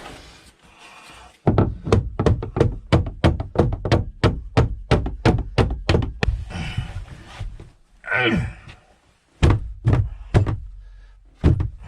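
Rapid pounding on a frozen-shut boat hatch to break it free: a quick run of sharp thunks, about four a second for some five seconds, then a few single knocks.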